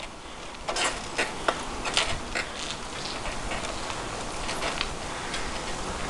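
Bicycle ticking and clicking as it rolls along a paved path, a few irregular clicks a second over a steady hiss.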